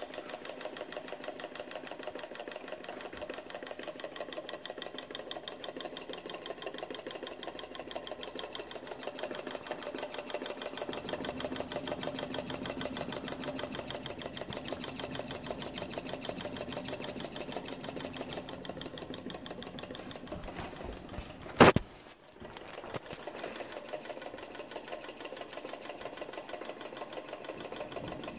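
Small model Stirling engine running fast, its moving parts making a quick, even ticking clatter. One loud sharp knock comes about three quarters of the way through, and the sound briefly drops away after it.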